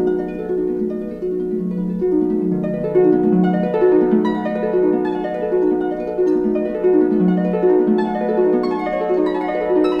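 Background music: a harp-like plucked string instrument playing a steady stream of flowing arpeggio notes over a held low note.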